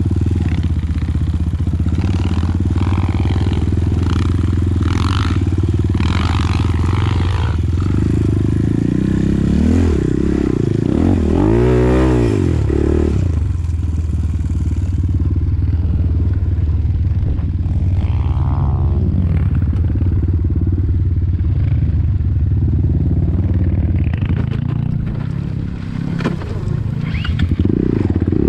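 Enduro dirt bike engine running, its pitch rising and falling with the throttle, with one marked rev up and back down about halfway through.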